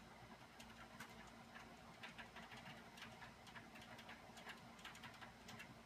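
Near silence with faint, irregular light clicks and taps, several a second at times, from small objects being handled, over a faint steady low hum.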